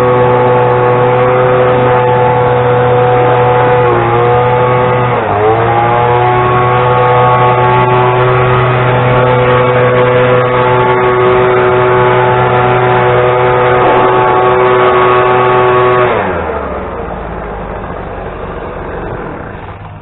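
An engine running steadily at a constant speed, dipping briefly about four to five seconds in and recovering, then shutting off near the end, its pitch and level falling as it winds down.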